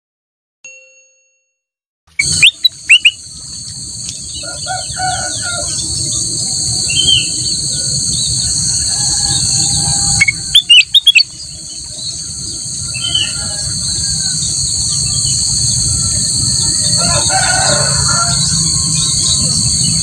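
A caged black-crested bulbul (kutilang emas) chirping and singing, with loud sharp chirps about two seconds in and again around the middle, over a steady high buzz.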